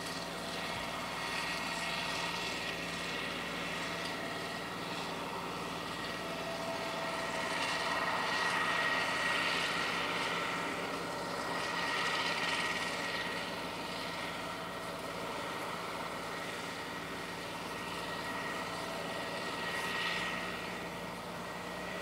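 Small ride-on road roller's engine running steadily as it rolls across turf, a continuous drone that swells a few times.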